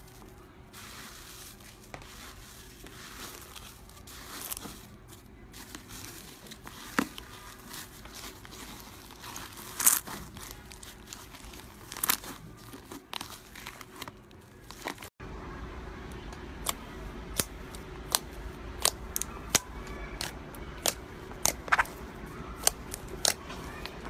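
Slime being stretched, squeezed and kneaded by hand: a soft wet crackling with scattered sharp clicks and pops. After a cut about two-thirds of the way through, the pops come more often, roughly one or two a second, as a glossy slime is pressed.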